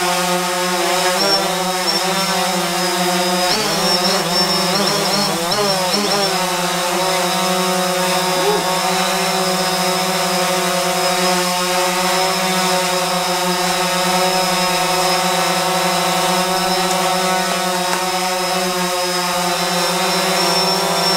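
DJI Phantom 4 Pro quadcopter's propellers humming steadily in flight. The pitch wavers for a few seconds about four seconds in, as the motors change speed.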